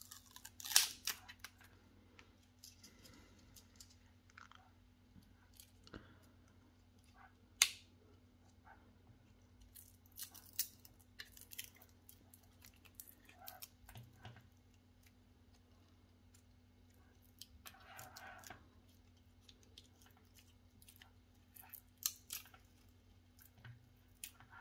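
Webcam packaging being handled by hand: scattered sharp clicks and taps with brief rustles of plastic and cardboard, over a faint steady low hum.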